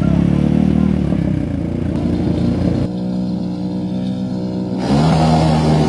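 ATV (quad) engines running loud at high revs under hard acceleration, with a rising rev near the end.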